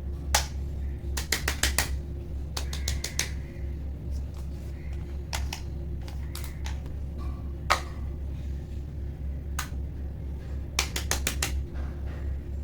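Fidget toys being pressed and clicked: sharp clicks, some single and some in quick runs of four or five, over a steady low hum.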